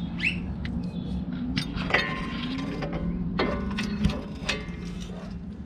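Metal tools clinking and knocking as a ball joint separator is fitted around the upper control arm ball joint, a dozen or so sharp clicks scattered through, with a low steady hum underneath.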